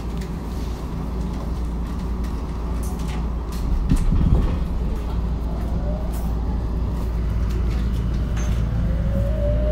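Tokyo Metro 02 series subway train standing at an underground platform: a steady low hum and rumble with scattered clicks. A rising whine begins near the end.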